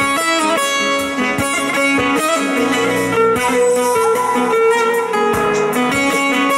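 Instrumental break of a Turkish folk song (türkü): a bağlama (long-necked saz) plays a plucked, quickly moving melody, backed by held notes on an electronic keyboard.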